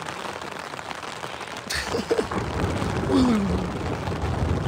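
Heavy rain on a tent: a steady hiss that changes suddenly, a little under two seconds in, to a louder low drumming rumble.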